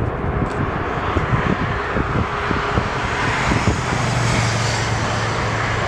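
Boeing 747 jet engines running: a loud rumble and hiss, joined by a steady low hum about four seconds in as the hiss builds.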